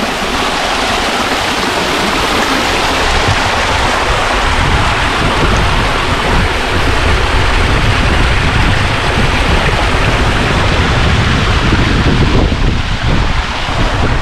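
Strong wind buffeting the microphone over a steady rushing noise, with a heavy low rumble of buffeting setting in about four seconds in.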